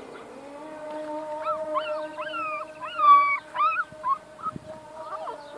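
Young puppy whining and crying: a run of about six short, high-pitched cries that rise and fall in pitch, from about a second and a half in to about four seconds in.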